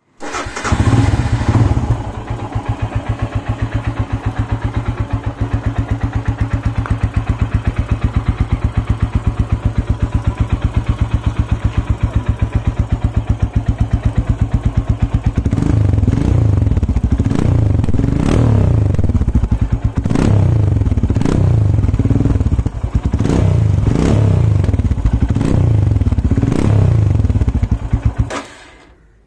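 Royal Enfield Himalayan's 411 cc single-cylinder engine running through a stainless steel Greasehouse Grunt aftermarket exhaust. For about the first half it idles with an even, steady beat. It is then blipped over and over, revving up and falling back each time, until the sound drops away near the end.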